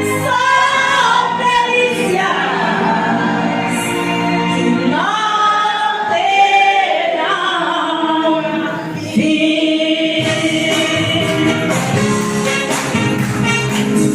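Gospel music: a choir singing a hymn with instrumental accompaniment.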